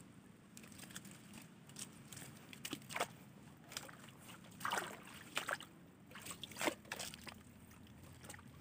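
Shallow water sloshing and splashing in a string of irregular splashes, starting about half a second in.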